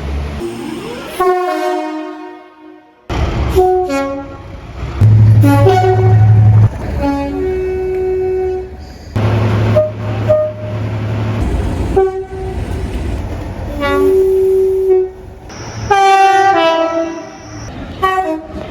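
Train horns, including two-tone horns, sounding in one short blast after another, each a different chord, cut together from many separate recordings. A low rumble of the train sits under some of the blasts.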